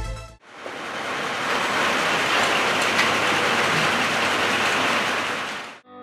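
Electronic music fading out, then a steady rushing hiss like rain or spray that runs for about five seconds and fades away near the end.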